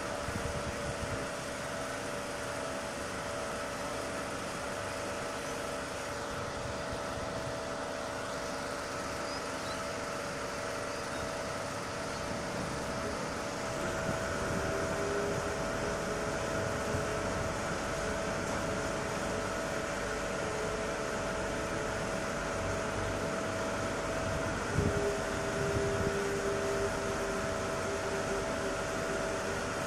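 HarbourCat ferry's diesel engines running, a steady drone with several whining tones. About 14 seconds in a new tone slides up in pitch and the drone grows a little louder, as the engines pick up speed. A single short knock about 25 seconds in.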